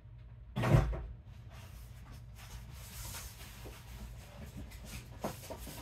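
A single heavy thump about a second in, then faint rustling and light knocks of someone rummaging out of sight, over a steady low hum.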